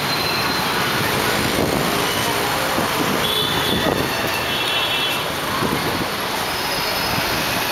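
Town street traffic noise: motorbikes and scooters passing on the road, a steady mixed hum, with a couple of short high-pitched squeals about three to four seconds in.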